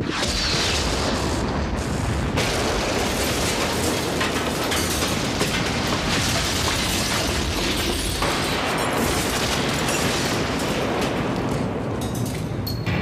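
An explosion goes off suddenly, followed by a continuous loud roar and rumble that lasts about twelve seconds and fades near the end.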